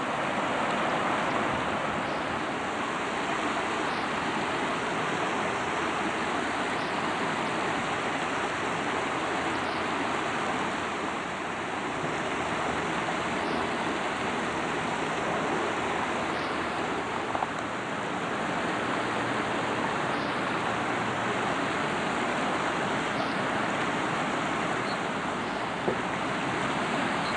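Shallow creek water running steadily over a gravel bed.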